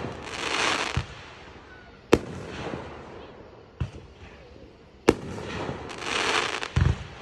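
Aerial fireworks bursting: sharp bangs about two seconds in, near four seconds and about five seconds in. Each glittering burst is followed by a stretch of crackling sizzle, and there is a low thud near the end.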